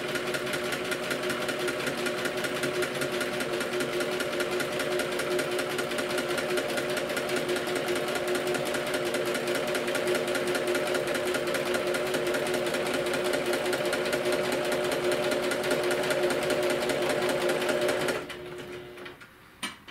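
Domestic electric sewing machine running at a steady speed, zigzag-stitching along the folded-under seam allowance of thin fabric. It stops about two seconds before the end, followed by a sharp click.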